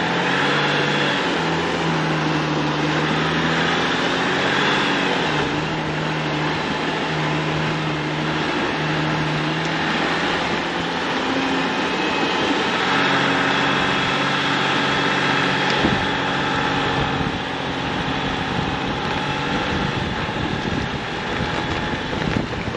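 Jeep driving along, its engine and tyre noise heard steadily, the engine note shifting slightly in pitch now and then.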